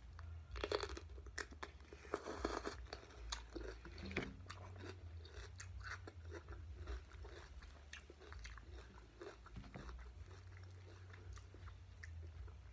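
A person bites into a whole cucumber, with two loud crunches about one and two seconds in. Chewing follows, the mouthful going on with many smaller crisp crunches.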